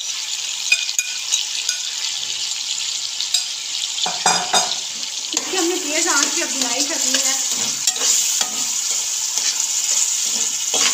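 Grated carrot and apple sizzling in hot ghee in a steel kadai over a high flame, stirred and scraped with a metal spatula. The sizzle is steady, and the stirring and scraping get louder about four seconds in.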